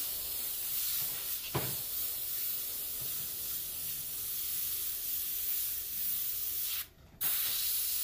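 Airbrush spraying paint in a steady hiss while the trigger is held to lay down a thin line of script lettering. The air cuts off for a moment about seven seconds in, then the hiss starts again.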